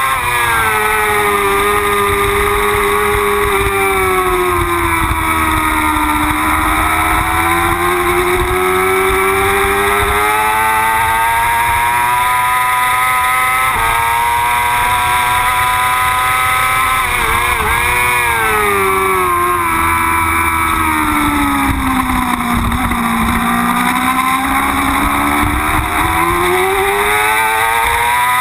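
Yamaha R6 race bike's 600 cc inline-four engine at speed on track. The revs sag slowly through long corners and climb again on the exits, with a brief jumble of abrupt pitch changes a little past halfway, over constant wind rush.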